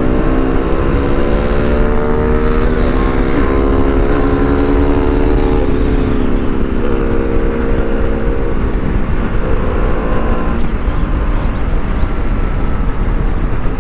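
BMW G310RR's single-cylinder engine running under way, its pitch climbing slowly for about six seconds, then dropping and fading into heavy wind noise on the microphone.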